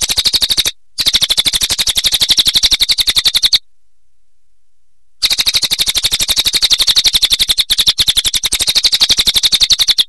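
Crested jay (cililin) giving its rapid rattling call, a fast even string of sharp notes at roughly a dozen a second. It comes in three bouts: a short one at the start, one of about two and a half seconds, and a longer one starting about five seconds in.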